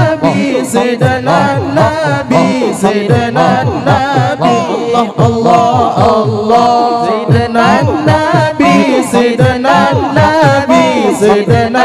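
Zikir saman chanting: male voices singing in unison, with lines that swoop up and down over a held note, and frequent sharp hits through it.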